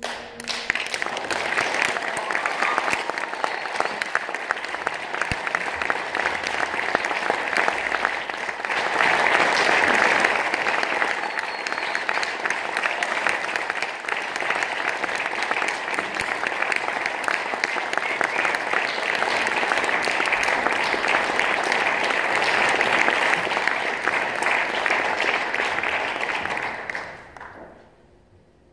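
Concert audience applauding after a song. The clapping starts all at once, grows louder about a third of the way in, and dies away just before the end.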